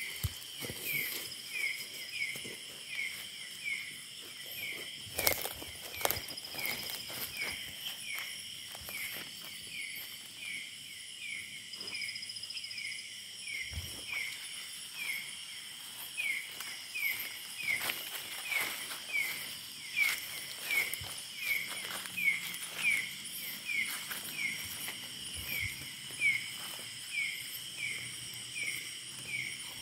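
Night insect chorus: steady high trilling with a short chirp repeating a little more than once a second. Footsteps and brushing through undergrowth make scattered rustles and crackles over it.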